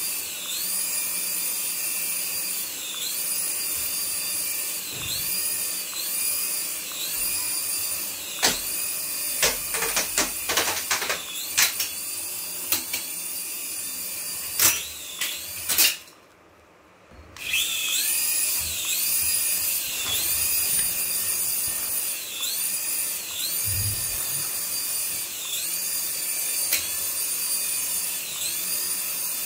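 Small coaxial-rotor toy RC helicopter's electric motors running with a high whine that dips and recovers in pitch about once a second as the throttle is worked. A run of sharp clicks comes about a third of the way in, and the sound cuts out briefly for about a second and a half past the middle.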